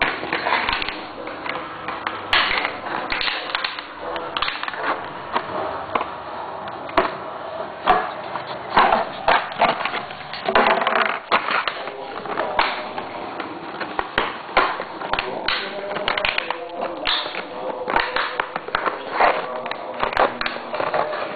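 Chow chow puppy playing on a wooden parquet floor, with irregular knocks, taps and scraping as it scrabbles about and pushes a clear plastic item.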